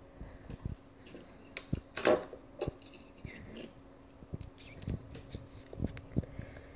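Scattered light clicks, taps and rustles of handling, from the pencil and the recording device being moved over paper, over a faint steady hum.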